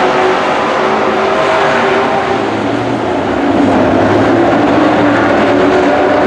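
Engines of several race trucks running at speed together, their pitch rising and falling as they circle the track. The sound dips a little just before halfway, then comes back louder.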